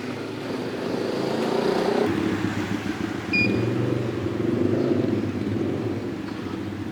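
Secure LD 26 M friction-feed banknote counting machine running, its motor and rollers making a steady fluttering hum as notes are fed through, with one short high beep about three and a half seconds in.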